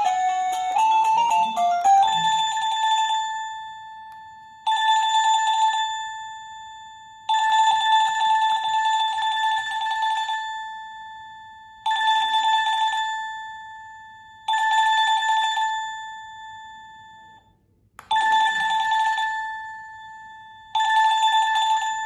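Wireless doorbell receiver playing electronic chimes: a quick melody finishes in the first two seconds, then a single bell-like tone sounds seven times at uneven gaps of about three seconds, each ringing out and fading.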